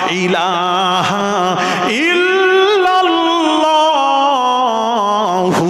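A man chanting in the melodic, sung style of a Bengali waz sermon, his voice wavering in long held notes. About two seconds in, a long note starts and slowly falls in pitch.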